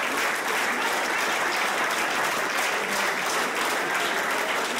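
Audience applauding, a steady dense clapping with no let-up.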